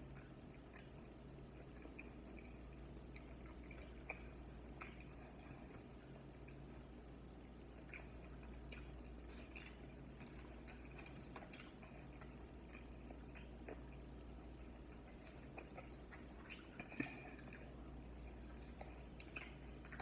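Faint chewing and mouth sounds of a person eating chicken wings and French fries by hand, with scattered soft clicks and a louder one about 17 seconds in. A steady low hum sits underneath.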